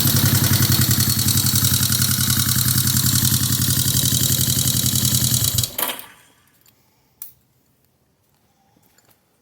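1971 Honda CB350's air-cooled parallel-twin engine running steadily, first run after ten years standing, then shut off a little over halfway through, the sound stopping abruptly. A single click follows about a second and a half later.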